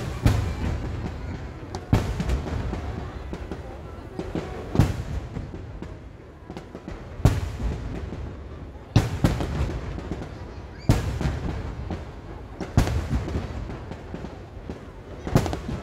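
Aerial firework shells bursting overhead: sharp booms about every two seconds, around eight in all, with a continuous low rumble between them.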